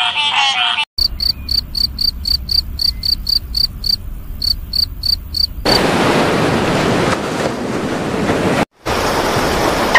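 A frog's call cuts off under a second in. A field cricket then chirps in an even run of high chirps, about four a second, for nearly five seconds. From about six seconds in, ocean surf washes steadily, broken by a brief gap near the end.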